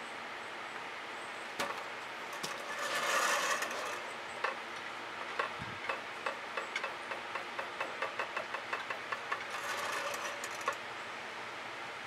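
A paint squeeze bottle sputters as acrylic paint is squirted out. Then a wooden skewer taps on a stretched canvas in a run of light ticks, about three a second, and there is another short sputter near the end, all over a steady low hiss.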